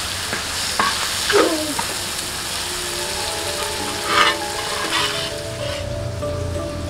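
Spice paste with lemongrass, galangal, ginger and leaves sizzling in hot oil in a wok, stir-fried with a metal spatula that scrapes across the pan a few times. The sizzle fades toward the end, and soft background music with plucked notes comes in partway through.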